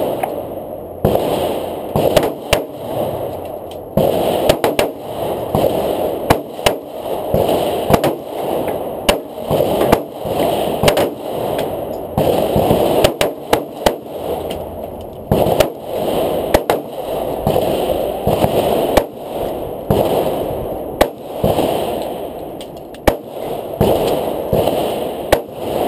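Handgun shots fired one after another at uneven intervals, about one a second, over a steady rushing noise.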